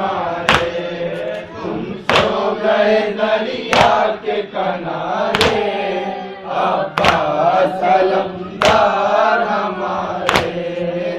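A crowd of men chanting a mourning lament (nauha) for Abbas in unison. About every second and a half a sharp, collective slap of chest-beating (matam) lands on the beat.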